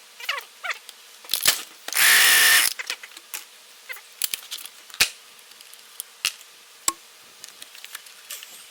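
Clicks and knocks of hands and tools working on a small-engine leaf blower, with one loud rushing burst lasting under a second about two seconds in.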